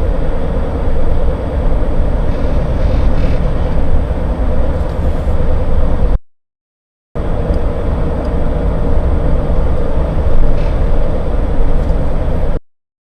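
Cabin sound of a 2017 Honda Ridgeline's 3.5-liter V6 under way: a low rumble with a steady hum over it, in two takes split by a short silence about six seconds in. It is the owner's unidentified repeating noise, which shows up only between 1500 and 2500 rpm; he wonders whether it is the variable cylinder management switching cylinders.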